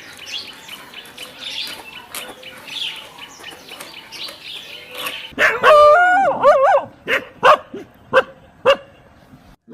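A dog giving a long wavering yelp, then barking four times in quick succession, with faint chirping before it.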